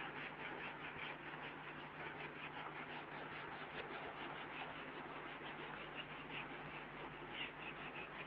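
Marker pen squeaking and scratching on a whiteboard in a run of short, quick strokes, bunched together near the end, over a faint steady low hum.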